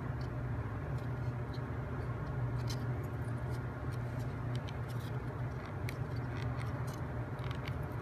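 Scattered light clicks and taps of laser-cut plywood model-kit parts being handled and slid apart, over a steady low hum.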